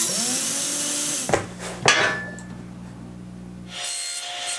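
Hitachi 10.8 V cordless drill/driver running as it drives a screw into a metal drawer slide, its motor spinning up and stopping a little over a second in, followed by two sharp clicks. Near the end a table saw starts running with a steady tone that slowly falls.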